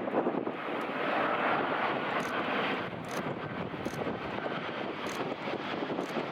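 Jet engines of a Boeing 737-800 airliner (CFM56-7B turbofans) heard as a steady rushing noise, a little louder about a second in.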